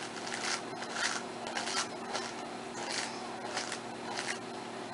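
Hands braiding hair: a run of short rustling swishes as the strands are crossed over and pulled tight, about one every half second.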